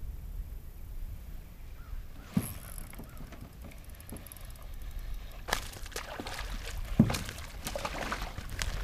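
A hooked bass splashing and thrashing at the water's surface as it is reeled up to the boat, in a quick irregular run of splashes from about halfway through. A single sharp knock comes a couple of seconds in, under a steady low rumble.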